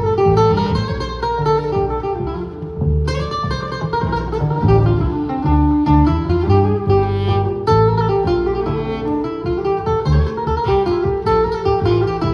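Live jazz trio: a steel-string acoustic guitar plays fast plucked, flamenco-flavoured lines over a walking upright double bass, with held melody notes gliding above.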